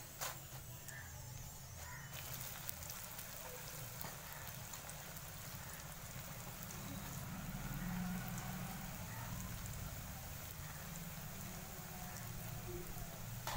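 Potato sticks for french fries deep-frying in hot oil in a pan: a steady, even sizzle of bubbling oil, with a few sharp clicks near the start as they are slid in.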